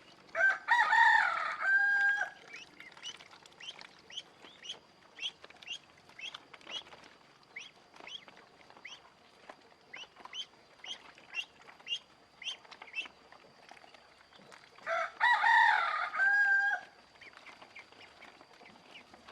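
A rooster crows twice, each crow a long call of about two seconds and the loudest sound here, with a run of short, high peeps from ducklings, a couple a second, between the two crows.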